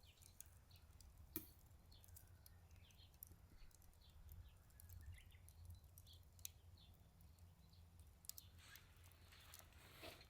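Faint wood fire in a Solo Stove Ranger fire pit, giving off scattered sharp crackles and pops, over a low wind rumble, with a few faint bird chirps.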